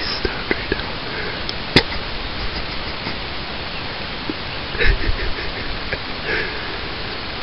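Steady background hiss, with a sharp click about two seconds in and a brief low thump near five seconds.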